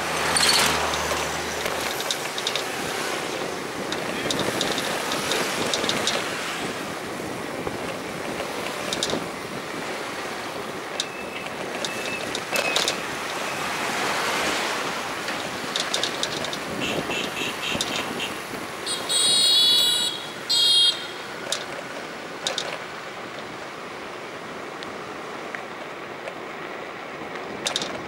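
Road traffic passing on a wet street, a steady rushing hiss with vehicles swelling past. About two-thirds of the way through come two short, loud, high-pitched blasts.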